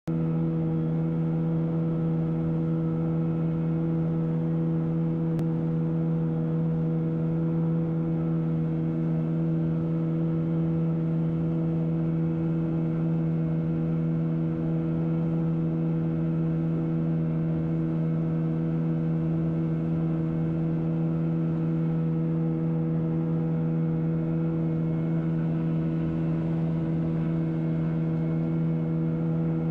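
Boat's outboard motor running at a steady cruising speed while the boat is underway, holding one pitch throughout.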